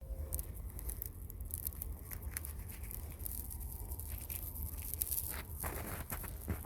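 Scattered sharp crackles and rustles, like dry material being crunched or crumpled, with a louder rustle about five and a half seconds in, over a steady low rumble.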